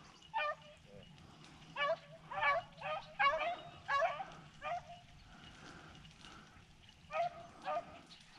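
Rabbit hounds giving tongue on a rabbit's trail: about nine short, faint barks, bunched in the first half, then a pause, then two more near the end.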